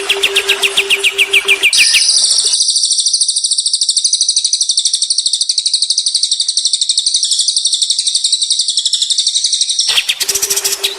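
Recorded songbird song. Quick repeated high chirps run over a steady low hum at first. About two seconds in, a long, very fast, high buzzing trill takes over and lasts about eight seconds. The chirping returns near the end.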